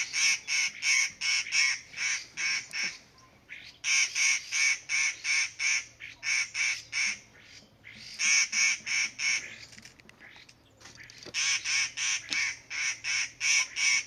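Rufous-chinned laughingthrush calling: a chattering run of loud notes, about three or four a second, in four bouts with short pauses between them.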